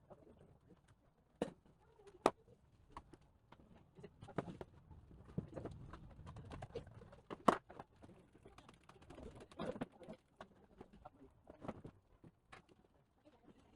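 Irregular light clicks and taps, with a few sharper knocks among them, from laptop parts and tools being handled during a teardown.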